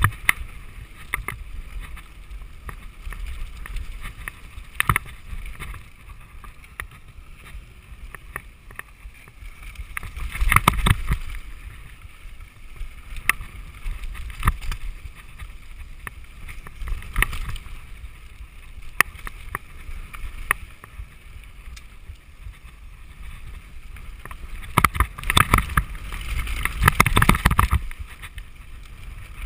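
Mountain bike descending a dry dirt trail: a steady rumble of wind buffeting the camera microphone, with frequent clicks and rattles from the bike over the bumps. It gets louder and rougher about ten seconds in and again near the end.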